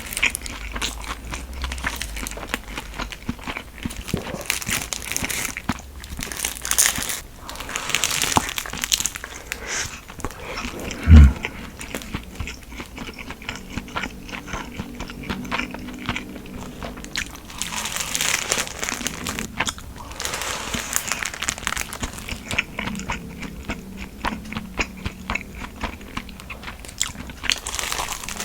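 Close-miked eating sounds: a person biting and chewing food, with dense crackly, wet mouth noises and some crunching. A single loud, low thump comes about eleven seconds in.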